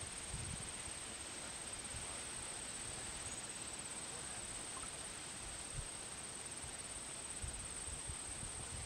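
Outdoor ambience: a continuous high-pitched insect drone over a soft hiss and a low wind rumble.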